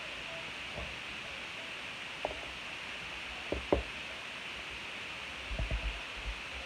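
A few soft knocks and handling sounds from objects being set down and moved about, over a steady background hiss. The loudest knock comes a little past the middle, and a short run of them comes near the end.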